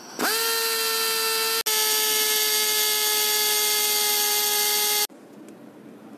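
Power drill with a 2 mm bit drilling into the old camshaft oil seal, to make a hole for a screw to pull the seal out. The motor spins up quickly to a steady high whine, cuts out for an instant about a second and a half in, runs again and stops abruptly about five seconds in.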